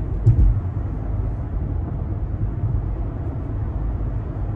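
Steady low road and engine rumble inside a moving car's cabin, with a brief knock about a third of a second in.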